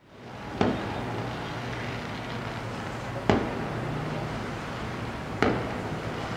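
Fireworks going off: three sharp bangs a couple of seconds apart, each trailing off briefly, over a steady low hum of city noise.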